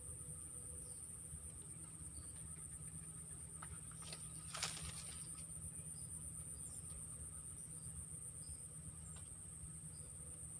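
Steady high-pitched drone of insects, crickets or cicadas, with scattered short chirps over it. About four and a half seconds in, a brief rustle-like noise stands out as the loudest sound.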